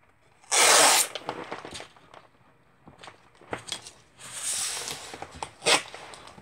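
Masking tape ripped off its roll in a loud, quick pull about half a second in, then a quieter stretch of tape unrolling and being pressed along the wooden frame edge, with scattered light clicks and a sharp knock near the end.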